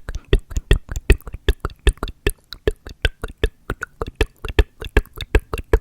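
Close-miked ASMR mouth sounds: a fast, even run of wet clicks, about six or seven a second.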